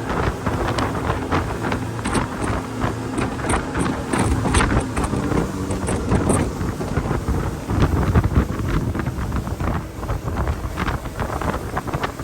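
Speedboat running under way, a steady engine hum under heavy wind buffeting on the microphone, with scattered short knocks or slaps.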